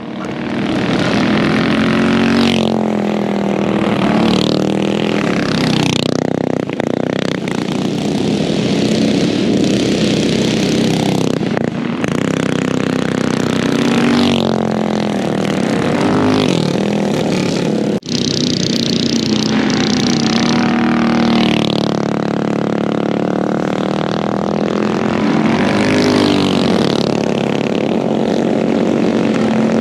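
Go-kart engines revving up and down as karts lap a dirt oval, their pitch rising on the straights and dropping into the turns again and again.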